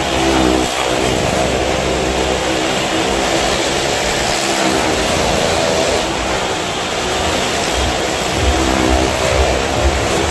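Several motorcycle engines and a car engine running hard as they circle the vertical wooden wall of a well-of-death drum, giving a continuous loud engine drone.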